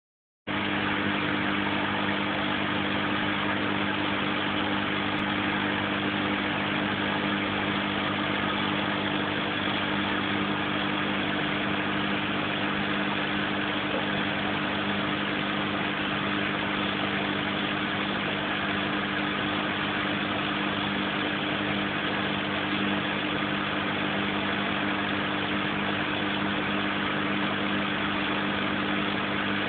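Aquarium pump running with a steady, unchanging hum and hiss.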